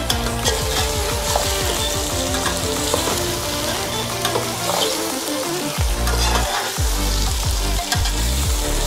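Chicken pieces frying in hot oil with onions and ginger-garlic paste in a pot, sizzling steadily. A ladle stirs and scrapes along the side of the pot, with scattered light knocks.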